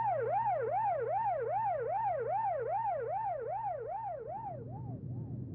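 Vehicle siren yelping, its pitch rising and falling about three times a second over a steady low hum, fading out near the end.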